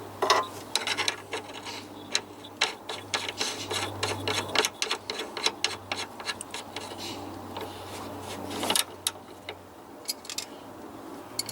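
Socket ratchet clicking in quick runs, with the clack of metal tools, as the nut on the tuning fork arm's bolt to the track control arm is done up.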